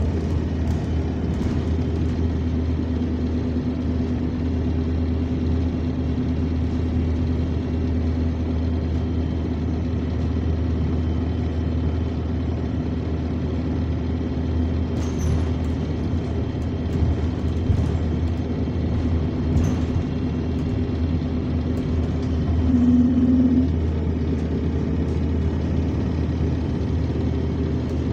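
Bus engine and air compressor running, heard from inside the saloon as a steady low drone with a constant humming tone on top. The hum briefly gets louder about 23 seconds in, and there are a few faint rattles in the middle.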